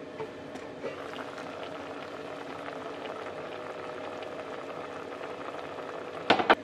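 Sardines simmering in a plum-and-soy broth in an enamelled pot, the broth bubbling and crackling steadily. A couple of sharp knocks come near the end.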